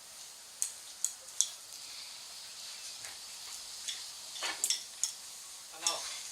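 Cats at their dinner bowls: scattered sharp clicks and taps over a steady hiss, with a short pitched call about two-thirds of the way in and another near the end.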